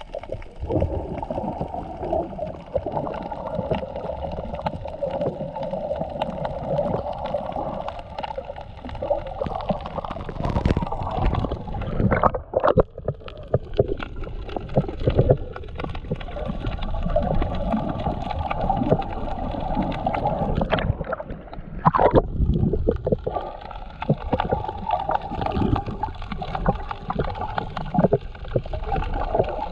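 Underwater water noise picked up through a camera's waterproof housing: continuous muffled gurgling and sloshing, with scattered small knocks and two short louder bursts, one about twelve seconds in and one about twenty-one seconds in.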